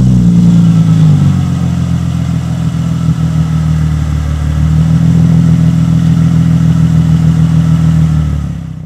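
Mercedes-Benz SLK 350 (R171) 3.5-litre V6 starting through a Piecha QUADRO aftermarket quad-tip exhaust: the engine catches and flares briefly, then settles to a steady, deep idle.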